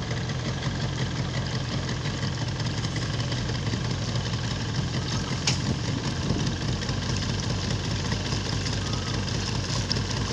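Motorboat engine running steadily, with a single sharp click about halfway through.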